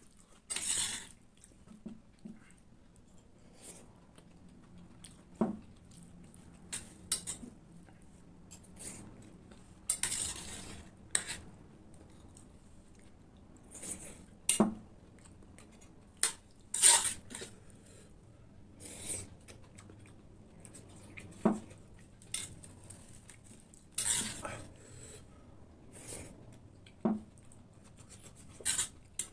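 Metal spoon scraping and clinking against a stainless steel plate of scrambled egg while eating. Sharp clinks come every few seconds, with longer scraping scoops between them.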